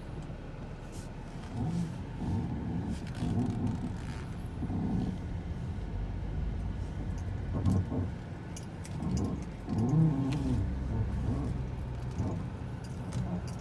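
2006 Ford Fusion's front suspension creaking and groaning like a door as the wheels are turned, in several drawn-out low creaks over the engine running at low speed. The owner cannot find the cause; the ball-joint boots look sound and the wheels show no play.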